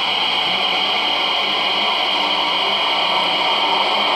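Digital locomotive sound from H0 model trains' sound decoders, played through their small on-board speakers: a steady hiss and hum with a high tone held through it.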